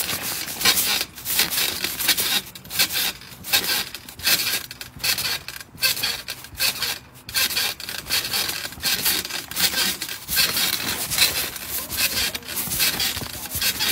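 Rubbing and scratching handling noise on a phone's microphone, in irregular strokes several times a second, as it is jostled against clothing or the trampoline netting.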